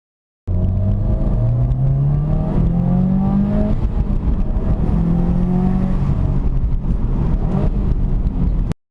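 Subaru WRX STI's turbocharged flat-four engine accelerating under boost, its pitch rising in two pulls. The clip is made to let a mysterious noise under boost be heard; the cause is not stated.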